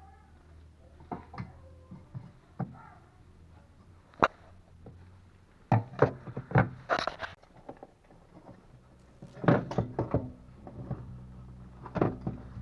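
Irregular knocks, clicks and clunks of car parts and hand tools being handled while a replacement assembly is fitted, in a few short clusters with pauses between them.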